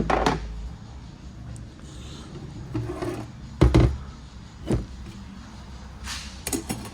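Transmission clutch-drum parts being handled on a workbench: a few knocks and clunks, the loudest about three and a half seconds in, with rubbing and sliding between them and a quick run of clicks near the end.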